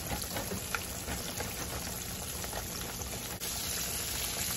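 Flour-dredged cubed steak frying in hot oil in a cast-iron skillet: a steady sizzle dotted with small crackles. About three and a half seconds in, the sizzle turns louder as another floured piece is laid into the oil.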